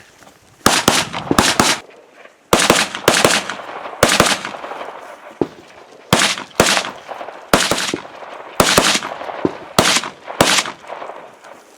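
A rifle firing a rapid string of about twenty shots, mostly in quick pairs and small groups with pauses of about half a second to a second between them, each crack followed by a short echo.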